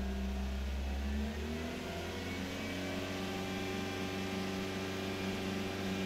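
Suzuki Swift 1.3 L four-cylinder engine held at raised revs, then dropping back to a steady idle about two seconds in.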